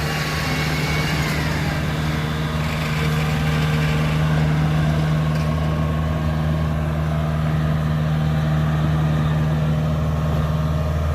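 Diesel engine running steadily at a constant speed, its pitch unchanging.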